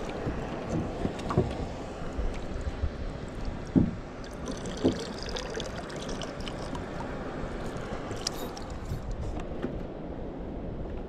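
Water lapping against the hull of a small drifting boat, a steady low wash, with a couple of sharp knocks about four and five seconds in.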